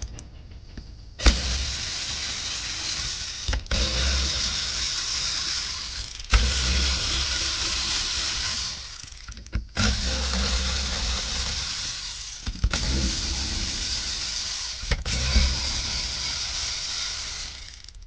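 Cordless power driver whirring in six runs of a few seconds each, with short pauses between them, as it backs out the cover screws of a Volvo Penta D4 sea-water pump.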